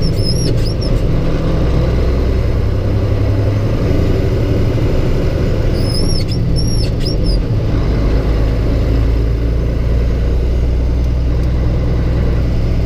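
Semi-truck diesel engine and drivetrain droning inside the cab while driving and upshifting a 10-speed manual transmission, the engine note changing about 4 s in and again about 8 s in. Two brief clusters of short high chirps, one at the start and one about 6 s in.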